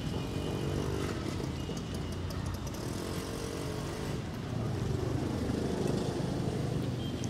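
A motor vehicle's engine running steadily, its hum getting a little louder about halfway through. Over it come faint crinkles of a plastic shampoo sachet being squeezed into a bottle.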